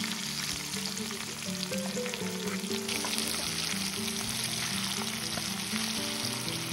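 Vegetables and mushrooms sizzling in a skillet of hot ajillo oil as they are slid in from a cutting board and turned with tongs, a dense sizzle with small crackles that grows louder about three seconds in.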